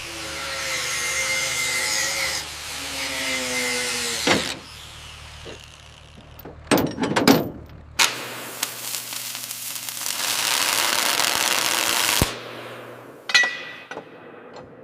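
Power tools running on metal in a series of abruptly cut clips: hissing, whining stretches of noise with a few sharp knocks between them.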